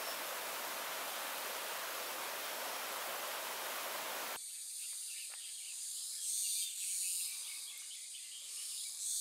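Steady rushing of running stream water, which cuts off abruptly about four seconds in. It gives way to high-pitched insects trilling in swelling pulses.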